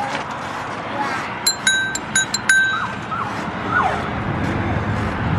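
Bicycle bell rung four times in quick succession, bright dings, over the steady low rumble of the pedal cart rolling along the path.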